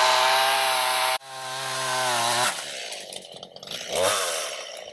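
Two-stroke chainsaw running at high revs while cutting tree limbs, dropping back toward idle about halfway through, with a short rev near the end.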